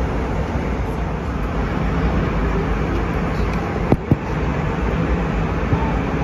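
Steady roar of an Airbus A320 cabin in flight: engine and airflow noise heard from a window seat. Two short sharp clicks about four seconds in.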